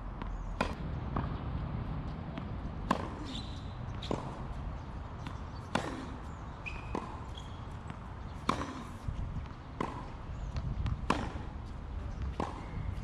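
Tennis rally on a hard court: sharp pops of racket strings striking the ball, alternating with the ball bouncing on the court surface, about one impact every second and a half.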